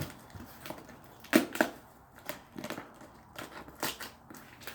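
Gift packaging being handled and pulled open: irregular sharp crackles and snaps, the loudest a close pair about a second and a half in.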